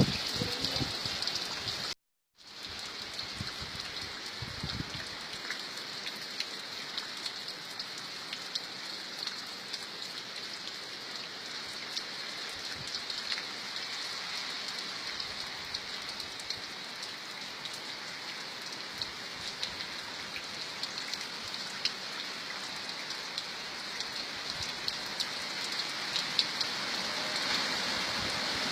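Steady rain with many fine drop ticks. The sound cuts out completely for a split second about two seconds in, then carries on, growing a little louder toward the end.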